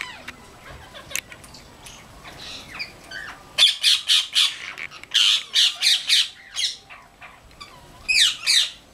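A flock of parrots squawking. A few scattered harsh calls at first, then from a little over a third of the way in a thick run of short shrieking calls, some sliding down in pitch.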